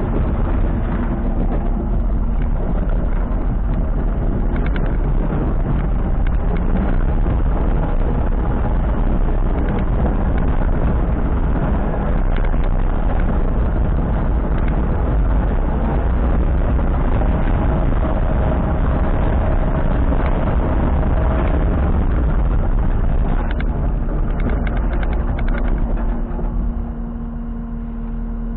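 Diesel engine of a Kubota SVL97-2 tracked skid steer running loudly and steadily, then dropping off in level near the end.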